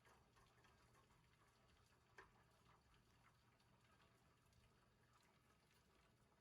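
Near silence, with a few faint clicks and one slightly clearer tick about two seconds in, as a small screwdriver turns the pressurestat's adjustment screw.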